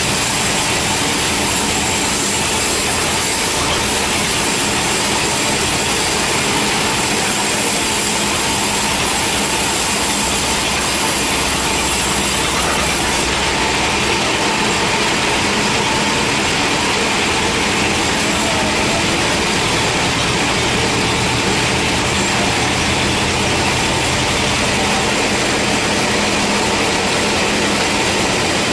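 Band sawmill running steadily, its band blade sawing through a teak log, with the mill's motor under the cutting noise.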